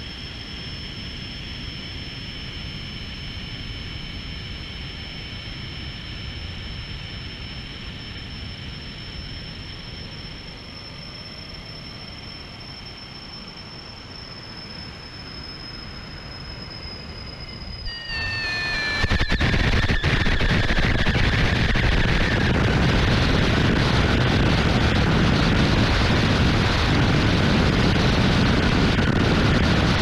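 Audio from a microphone inside a Varda Space capsule's structure during atmospheric reentry: a steady rushing hiss with high, steady whining tones. About 18 seconds in, the tones step down in pitch and the rush becomes much louder, from vibration and pressure changes on the hull.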